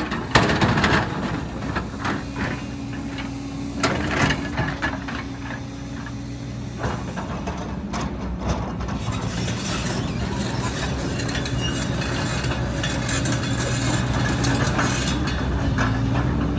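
Heavy diesel engine of construction machinery running steadily, with a few sharp knocks and clatter in the first few seconds. The engine grows gradually louder.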